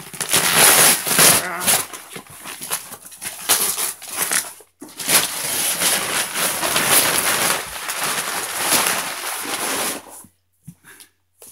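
A large cardboard shipping box being torn open by hand: rough tearing, scraping and rustling of cardboard and packing. It goes in two long stretches with a brief pause about five seconds in, and stops about ten seconds in.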